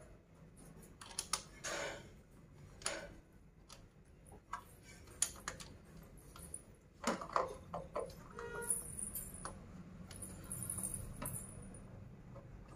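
Small clicks, taps and rustles of a rubber foot being worked onto the metal frame of a two-burner gas stove by hand, coming at irregular moments.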